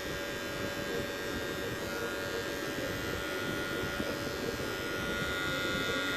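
Wahl electric hair clipper buzzing steadily as it cuts short hair on the side of the head, blending out the line left by the zero setting in a fade.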